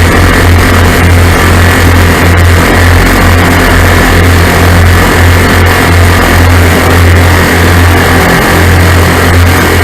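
Lazair ultralight's twin engines running steadily in flight: a loud, continuous drone with a slightly pulsing low rumble.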